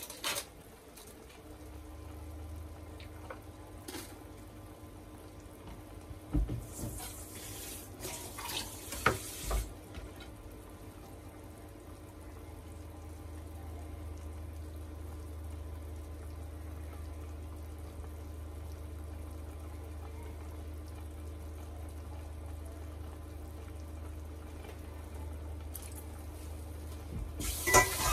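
Kitchen sink tap running in short spells, with a few sharp knocks of kitchenware, over a steady low hum.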